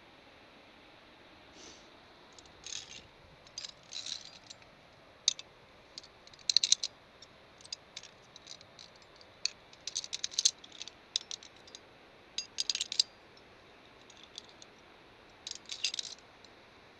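Via ferrata lanyard carabiners clinking against the steel safety cable and against each other: irregular clusters of short metallic clicks and rattles.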